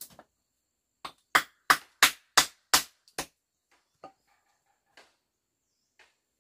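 A quick run of about seven sharp knocks, roughly three a second, as flat stones are struck while being set into a stone cooking stove; a few faint taps follow.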